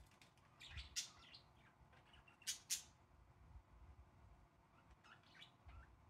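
Budgerigars chirping in short, sharp calls: a cluster about a second in, two loud chirps around the middle, and a few fainter ones near the end.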